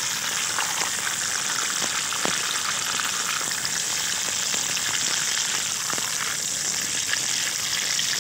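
Whole small eggplants frying in hot oil in a metal kadhai: a steady sizzle, with a few light clicks of a metal spatula against the pan as they are turned and lifted out.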